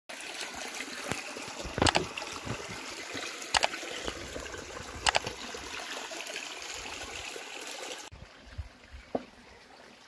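Shallow stream water trickling over a stony bed, with three sharp clicks about 2, 3.5 and 5 seconds in. The water sound cuts off abruptly about 8 seconds in, leaving a much quieter background.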